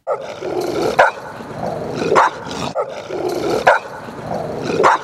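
Dogs barking, a sharp loud bark every second or so between longer rising-and-falling sounds; the same stretch of a little over two and a half seconds plays twice.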